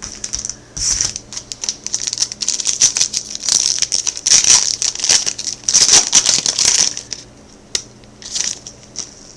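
Foil wrapper of a baseball card pack crinkling in the hands as it is handled and opened, loudest over the middle stretch, with a couple of short crinkles near the end.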